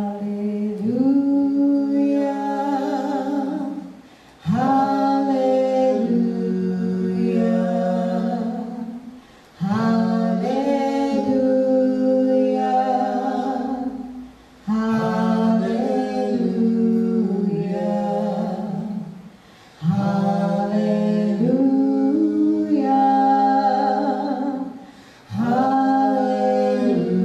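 A man and a woman singing a slow, unaccompanied gospel chorus in harmony. The phrases are long and held, about five seconds each, with a brief breath between them.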